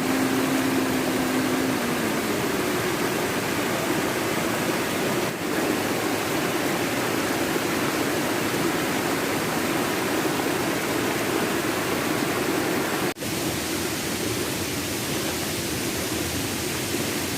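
Steady rush of river water and waterfalls, with a brief break about thirteen seconds in.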